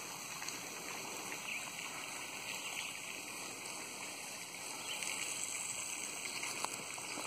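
Steady rush of flowing water, like a stream or river, with a few faint light ticks.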